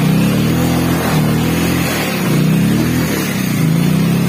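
Motorcycle engine revving in about four surges, each rising in pitch and dropping back, as the bike is worked slowly over rocky, rutted mud with the rider's foot down.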